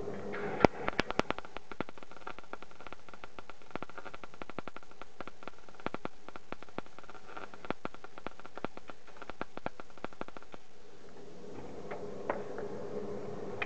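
MIG welder arc crackling and popping as a Sealey 180 welds scrap sheet metal, with irregular sharp cracks that are loudest in the first second or so. The arc stops about ten and a half seconds in. The arc striking shows that the welder works again on its rebuilt bridge rectifier.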